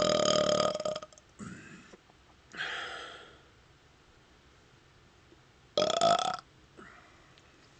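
A man's burps after gulping carbonated soda. A long, loud burp ends about a second in, a few quieter sounds follow, then a second short, loud burp with a rising pitch comes about six seconds in.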